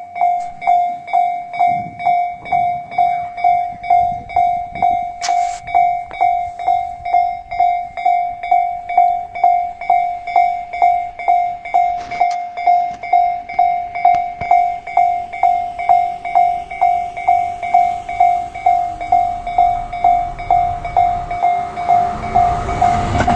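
Japanese railway level-crossing warning bell ringing, about two strikes a second, signalling that a train is coming. Near the end the noise of the approaching Tobu 10050 series electric train rises under it.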